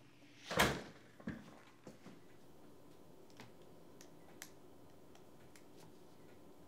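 A front door swinging shut about half a second in, with a latch click just after. Then a few light, widely spaced clicks of calculator keys being pressed.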